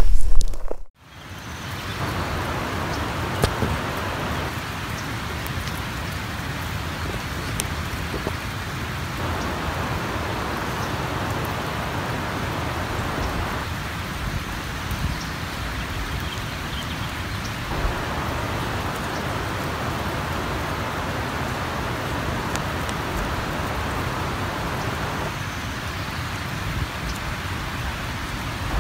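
Steady dry rustling and pattering, like light rain, from a swarm of Mormon crickets (Anabrus simplex) crawling over dry leaf litter and twigs. It starts after a sudden cut about a second in.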